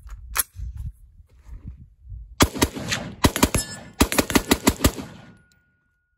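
AR-15 rifle fired in a quick string of about ten semi-automatic shots over two and a half seconds, after a single sharp knock about half a second in. The battered polymer magazine feeds every round without a stoppage.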